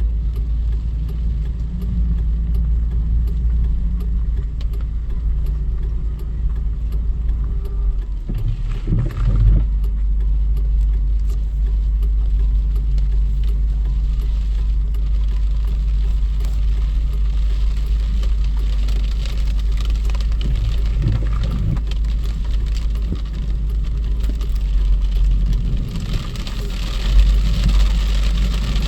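A motor vehicle running with a steady low rumble, swelling briefly a few times.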